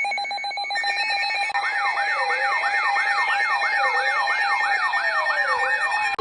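Electronic siren and alarm tones. A rapidly pulsing beep over steady tones fades within the first second. From about a second and a half in, a fast yelping siren sweep repeats about two and a half times a second over a slower rising-and-falling wail and a steady tone.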